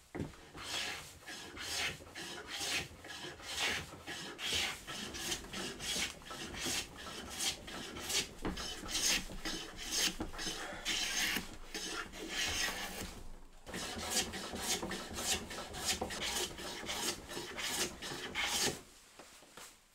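Hand plane shaving down the edge of a wooden handle blank in rapid repeated strokes, each a short rasping swish of the blade taking off a curl of wood, to cut a taper. There is a brief pause about two-thirds of the way through, and the strokes stop near the end.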